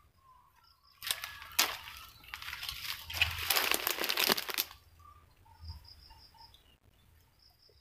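Clods of soil being dug up and broken apart by hand, a crackling crunch that starts about a second in and lasts nearly four seconds.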